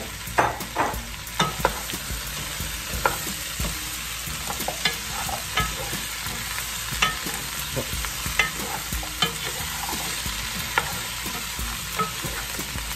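Wooden spoon stirring chunks of kabocha squash and potatoes in a pot over high heat: irregular clacks of spoon and vegetable pieces against the pot over a steady sizzle.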